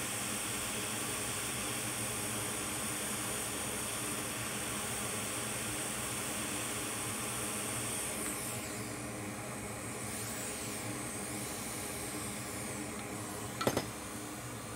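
Hot air rework station blowing a steady hiss of hot air over a MacBook logic board. About eight seconds in the nozzle moves off and the hiss changes. A sharp click comes near the end.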